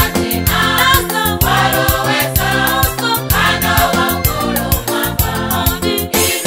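Women's choir singing a gospel song in unison, over a backing track with a steady beat and a bass line.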